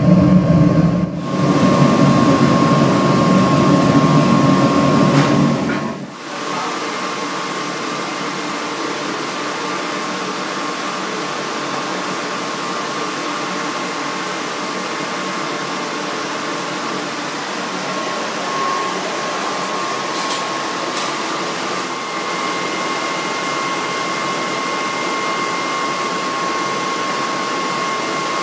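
Foundry melting furnace running with a steady rushing noise and a thin steady whine. A louder, deeper sound fills the first six seconds and stops abruptly.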